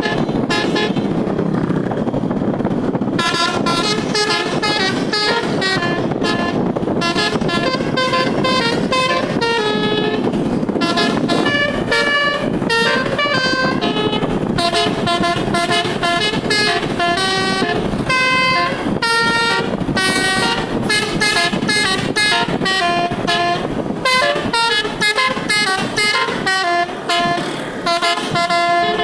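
Indonesian bus telolet horn, a multi-tone musical air horn with all its tones switched on, playing quick runs of changing notes like a tune. There is a low rumble underneath, and the horn notes come in fully about three seconds in.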